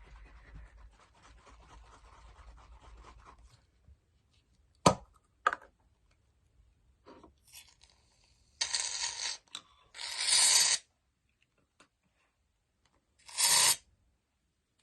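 Aerosol can of shaving cream hissing in three short spurts as the foam is dispensed, after two sharp clicks. Faint scraping before that.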